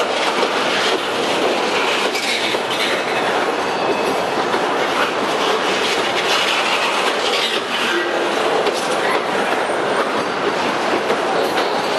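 Loaded centerbeam flatcars of a slow freight train rolling by: steady rumble and rattle of steel wheels on the rails, with a few brief wheel squeals.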